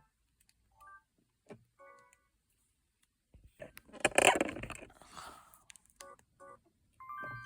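Samsung SGH-G600 mobile phone giving short key beeps as its tone list is stepped through, with a louder rush of noise lasting about two seconds in the middle. A ringtone melody starts near the end.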